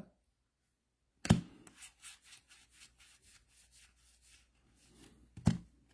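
Trading cards sliding against one another as they are thumbed through by hand, a run of faint short rubbing strokes, with a sharp snap about a second in and another near the end.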